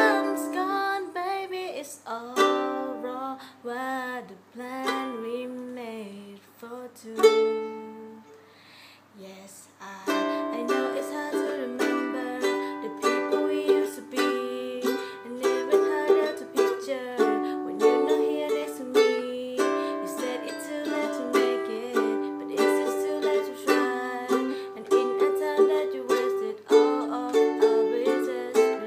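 Ukulele strummed through a Cadd9, G, Em, D chord progression. A voice sings over it for roughly the first nine seconds. From about ten seconds in there are steady, evenly strummed chords with no singing.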